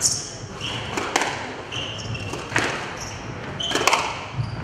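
A squash rally: the ball cracks off rackets and the walls four times, about every second and a quarter, with rubber-soled shoes squeaking briefly on the wooden court floor between the shots, in an echoing hall.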